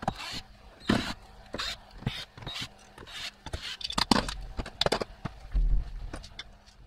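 Cordless drill/driver and hands working screws out of a plastic shower-control panel: a run of irregular clicks, knocks and scrapes, with a short low hum about five and a half seconds in.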